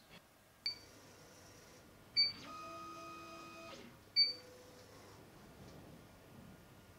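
Three short electronic beeps from the laser's control panel. Between the second and third, the newly wired Z-axis stepper motor gives about a second and a half of steady whine as it drives the bed.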